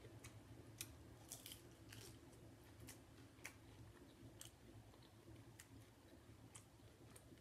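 Faint chewing of a crunchy hard taco shell: scattered crisp crunches over a low steady hum.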